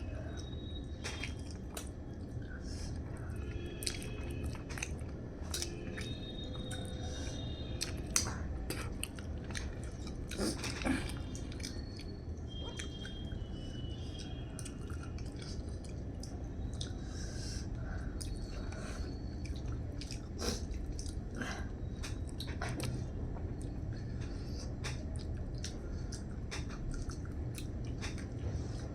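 Close-miked chewing and mouth sounds of someone eating, with many small clicks scattered throughout over a steady low hum.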